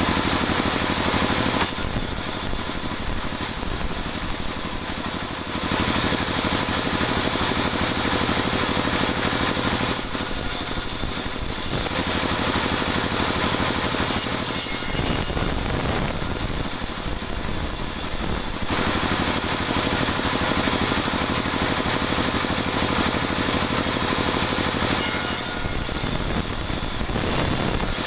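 Band sawmill running, its blade cutting through dry teak wood. The noise is steady but changes in texture every few seconds as the cut goes on.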